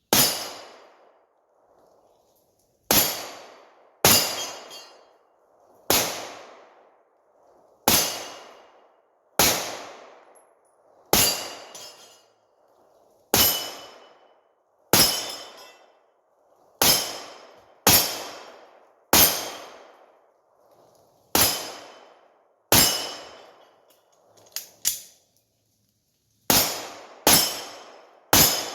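About twenty single gunshots fired at a slow, steady pace, one every second or two, each followed by a short metallic ring from steel targets being hit.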